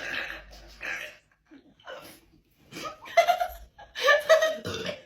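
A person laughing in short bursts, with pauses between them; the laughs grow louder in the second half.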